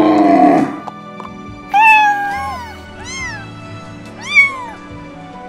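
Young kittens meowing: about four high, arching mews from about two seconds in, the last the loudest. A lower, falling animal call fades out in the first second, over background music.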